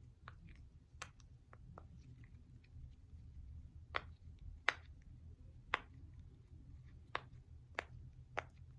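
Silicone mini pop-it fidget being popped: about ten short, faint pops at an uneven pace as its bubbles are pressed through.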